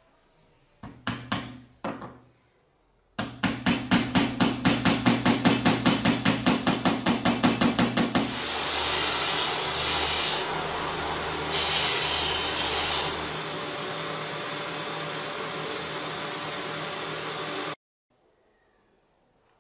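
A few light hammer taps on wood, then a homemade sanding machine starts and runs with a fast regular pulsing over its steady hum. A small wooden part is then pressed against the spinning sanding disc, giving an even sanding hiss that grows louder twice, before the sound cuts off suddenly.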